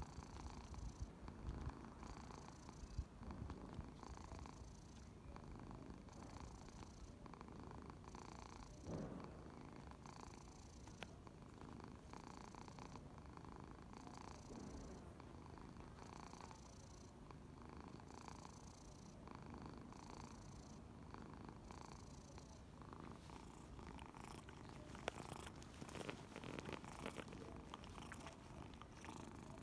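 Domestic cat snoring softly in its sleep, each breath in a slow, even rhythm about every two seconds. A few small clicks and rustles come near the end.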